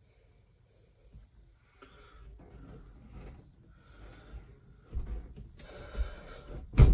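Crickets chirping steadily while the S-144 shelter's metal door is swung open and pushed shut, closing with a heavy thump near the end. The door is being tested for a seal against its repaired doorway.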